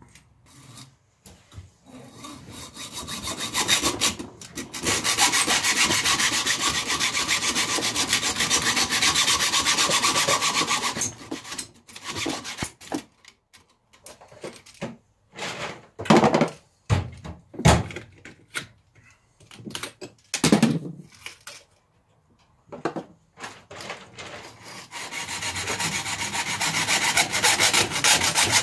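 Junior hacksaw cutting through thin aluminium tubing in quick back-and-forth strokes. The sawing breaks off partway for a few loud knocks and some scattered short strokes, then starts again steadily near the end.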